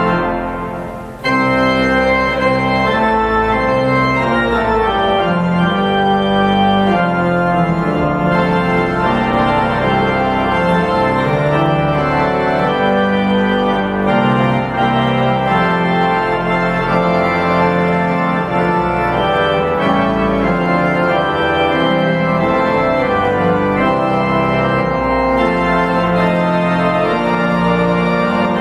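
Church organ playing full, sustained chords, the postlude at the close of the service. The sound dies away briefly about a second in, then the music comes straight back in.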